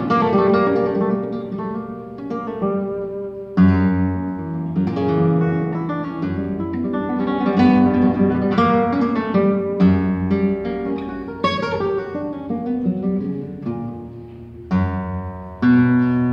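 Solo nylon-string Spanish guitar playing a petenera, the flamenco form: plucked melodic notes and runs with loud struck chords about three and a half seconds in and twice more near the end.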